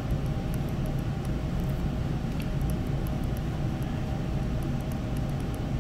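Steady low room hum of air handling, with faint, scattered high ticks over it.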